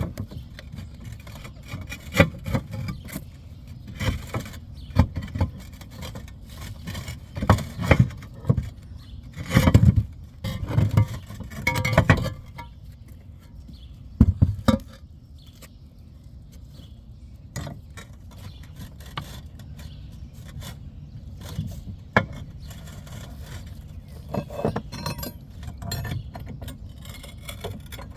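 Irregular clinks, knocks and scrapes of roof tiles being pried loose and handled, with a busier run of louder knocks about ten seconds in.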